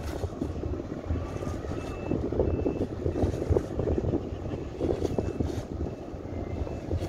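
Steady low rumble of a boat's engine with water and wind noise. Over it, faint short high beeps of a warning alarm repeat about twice a second in short runs.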